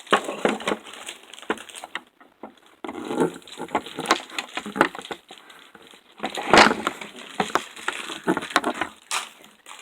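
Plastic toy packaging crinkling and crackling in irregular bursts as it is handled and opened, with the loudest crackle about six and a half seconds in.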